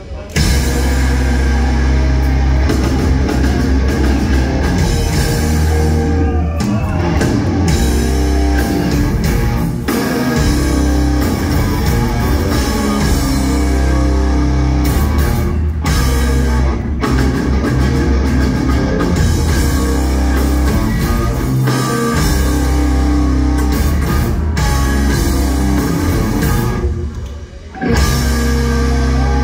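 Live rock band playing loud: electric guitars, bass guitar and drum kit. Near the end the band drops out for a moment, then comes back in.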